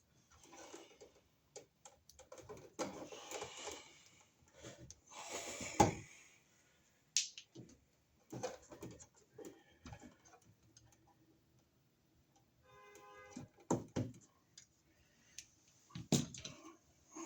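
Hand tools and household electrical wires being worked, as the wire ends are stripped and readied for the new receptacle: irregular clicks, scrapes and rustles, with one sharp snap about six seconds in.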